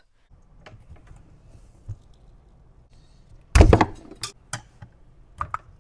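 Metal exhaust parts and hand tools being handled on a workbench: scattered light taps and clicks, with one short clatter of knocks a little past halfway through, the loudest sound.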